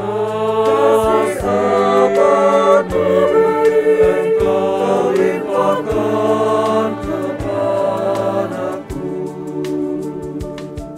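Choir singing a slow hymn in harmony over instrumental accompaniment, quieter near the end.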